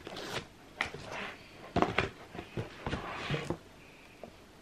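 A stiff cardboard box being folded together by hand: rustling of the cardboard and the backing of its self-adhesive strip being peeled off, with several sharp knocks and taps of the panels. The sound gets quieter in the last second or so.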